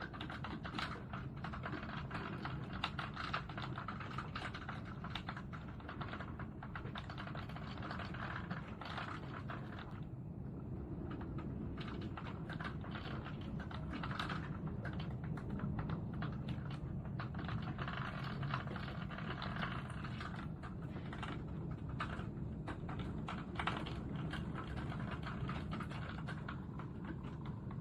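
Heavy rain hammering down, a dense, steady patter of drops striking hard surfaces close by.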